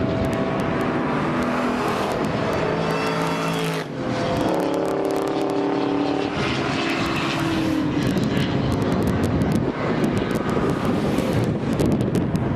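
Supercharged V8 of a Ford SVT Lightning pickup running hard on a race track. The engine note dips briefly about four seconds in, then comes back lower and climbs. Wind noise and buffeting grow over it in the last few seconds.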